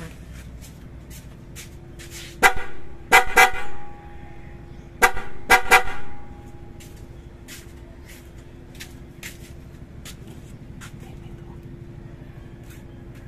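Newly installed pair of PIAA Otostyle dual-tone electric horns sounding in two bursts of quick honks, about three short blasts each, one group about two and a half seconds in and another about five seconds in.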